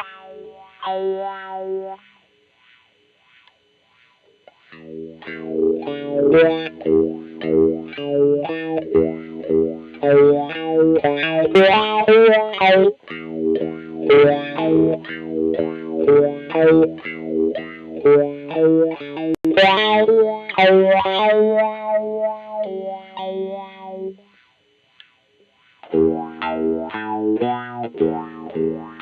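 1994 Mexican-made Fender Stratocaster electric guitar with GFS Jimi reverse pickups, played through effects: a few ringing notes, a pause of a couple of seconds, then a long run of picked notes and chords, with another brief pause near the end before the playing resumes.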